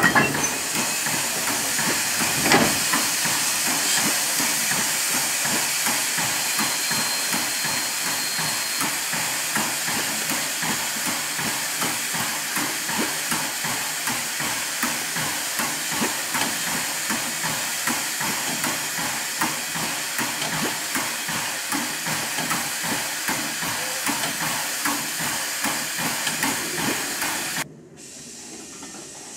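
Saddle-tank steam locomotive standing and venting steam, a loud steady hiss, with a single knock about two and a half seconds in. The hiss cuts off suddenly near the end.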